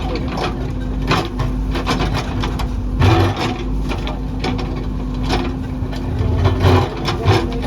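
JCB backhoe loader's diesel engine running steadily, with frequent short knocks and scrapes of earth and rock being worked; the loudest knocks fall about three seconds in and near the end.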